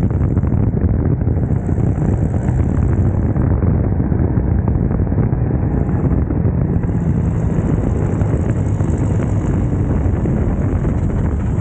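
Light aircraft's engine and propeller running steadily while the plane rolls fast along the runway, buried under heavy wind rush on the microphone.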